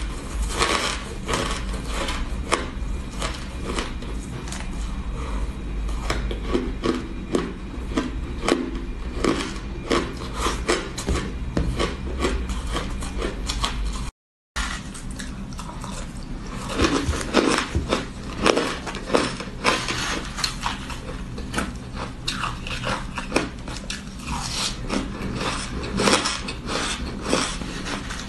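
Frozen ice being bitten and crunched in the mouth close to the microphone: a dense, irregular crackling of many small cracks. It breaks off for a split second about halfway through, then resumes.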